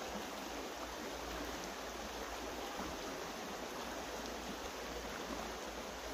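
Steady rushing of flowing water from a stream, even and unbroken throughout.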